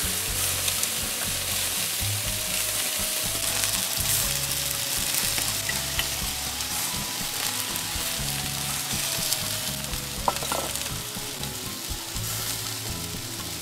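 Homemade leek sausages, blood sausage and chorizo sizzling on a wire grill over charcoal embers: a steady hiss, with one brief knock about ten seconds in, over soft background music.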